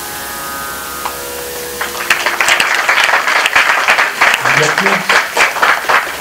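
An audience applauding, starting about two seconds in and carrying on strongly. It follows a held musical drone that fades out under it.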